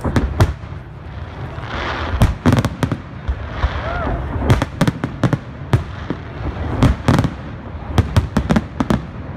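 Aerial fireworks shells bursting: a steady run of sharp bangs and cracks, several coming in quick clusters. Voices of onlookers can be heard underneath.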